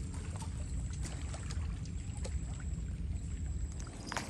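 Wind buffeting the microphone as a steady low rumble, with a faint thin high-pitched tone and a few light clicks over it.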